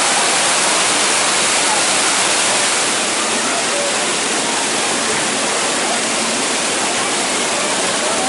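Heavy rushing water, a steady loud rush like a waterfall, with faint voices underneath.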